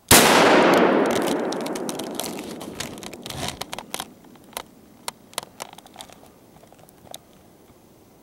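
A single loud shot goes off and its echo dies away over about three seconds, followed by scattered clicks and rustles.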